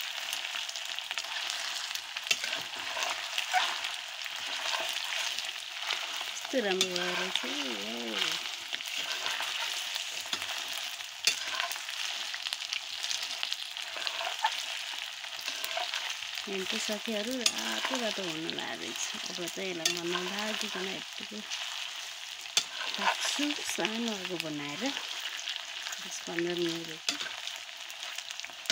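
Chopped buffalo meat and tomatoes frying in hot oil in a karahi, sizzling steadily while a metal spatula stirs and scrapes the pan, with frequent small clicks of the spatula against the metal.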